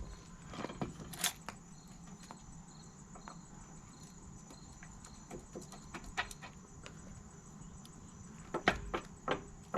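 Scattered light clinks and taps of metal parts and tools being handled, with a small cluster of sharper knocks near the end. A faint high chirp repeats about twice a second for a few seconds in the middle.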